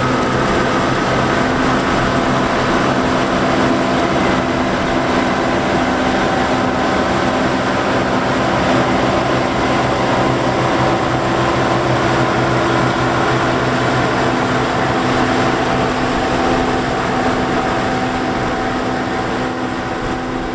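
John Deere 4425 combine running steadily in the field, its engine and threshing machinery giving a constant hum with a broad mechanical rush, fading out near the end.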